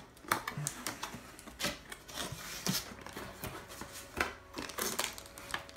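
Cardboard box being opened by hand: top flaps pried up and cardboard packing pulled aside, giving irregular rustling, scraping and soft clicks of cardboard.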